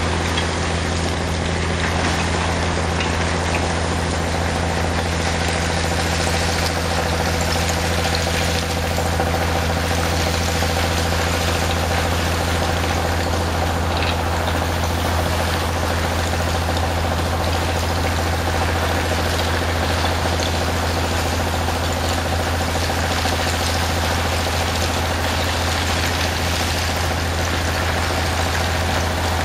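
Steady drone of a pump engine driving a high-pressure water jet, with the constant rush and splash of the water blasting oyster shell off a barge.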